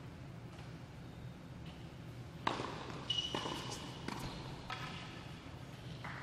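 Tennis ball bounced lightly on the court before a serve, then the serve struck about two and a half seconds in, followed by a rally of racket hits and ball bounces with a high squeak just after the serve. The hits ring and echo in a large indoor tennis hall.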